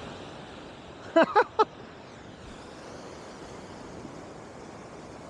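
Steady wash of surf with wind on the microphone. About a second in, three short, loud, rising calls in quick succession stand out above it.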